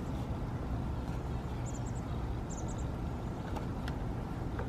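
Steady low background rumble, with two quick runs of faint high chirps near the middle.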